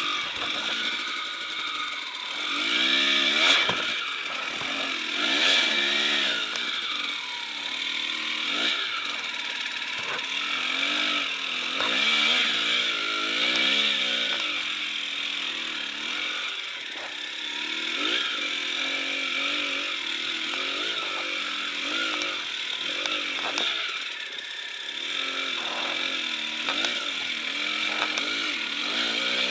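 Enduro motorcycle engine revving, its pitch rising and falling again and again as the throttle is worked over rough ground.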